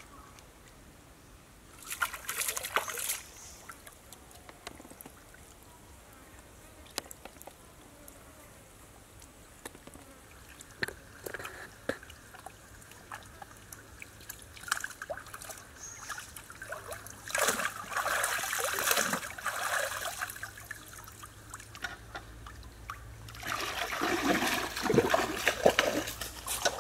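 Shallow stream water splashing and sloshing as a wok of snakes is rinsed and a person wades, in bursts: a short one about two seconds in, a longer stretch past the middle, and another near the end, with small drips and clicks between.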